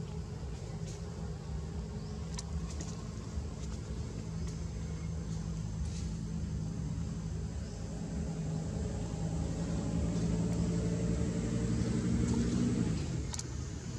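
A motor vehicle's engine running steadily, its pitch creeping slowly upward and then dropping away about a second before the end, with a few faint clicks over it.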